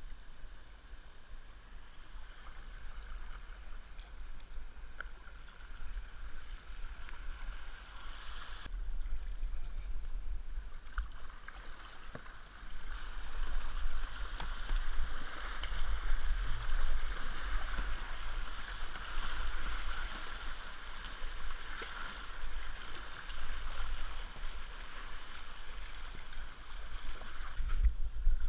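River in spate rushing around a kayak, with paddle strokes in the water; the rush gets louder about halfway through. A low rumble runs underneath.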